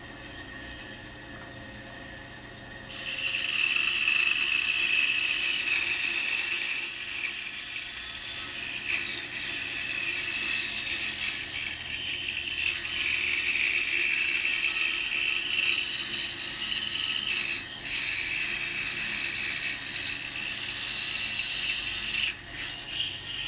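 Pegas scroll saw starting up about three seconds in and running steadily, its blade sawing through a thick wooden block to cut out the inside of a drawer. It gives a loud hiss with a high whine, dips briefly twice and stops just before the end.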